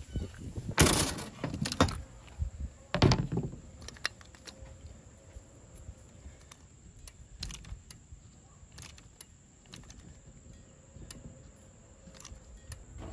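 Metal parts knocking and rattling against a van's sheet-metal roof as they are handled and fitted: a few loud knocks in the first three seconds, then scattered light taps and clicks.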